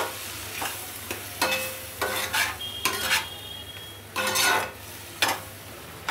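Steel spatula stirring and scraping a mixture of fenugreek leaves, peas and fresh cream around a kadhai in a series of irregular strokes, with the food frying over the gas flame.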